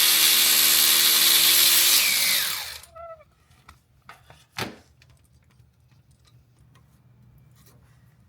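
Cordless power tool running at full speed for about two seconds, then spinning down with a falling whine, as it backs out the H8 drain plug of the Vortech supercharger's oil system. A single sharp knock follows a couple of seconds later.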